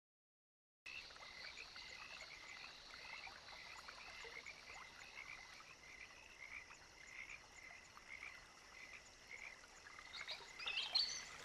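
A chorus of frogs calling, starting about a second in: many small calls repeating steadily, with a few sharper chirps near the end.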